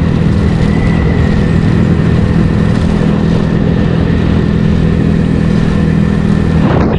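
Yamaha Mio Sporty scooter's single-cylinder four-stroke engine running at a steady cruising speed, with wind and road noise over it.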